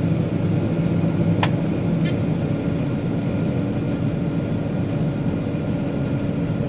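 John Deere 9500 combine running steadily under load, a constant machine hum heard from the operator's position while the grain tank is being unloaded. A single sharp click about a second and a half in.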